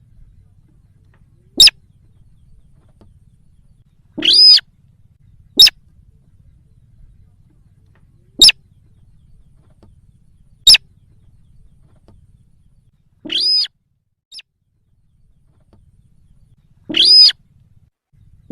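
Lure recording of the sintar call: loud, spaced-out calls every couple of seconds, short sharp high notes alternating with longer, about half-second calls, with a faint low hum between them.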